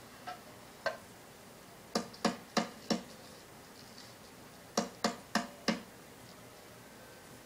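Sharp hard taps or clicks: two single ones, then a quick run of four, and a few seconds later another run of four, about three a second.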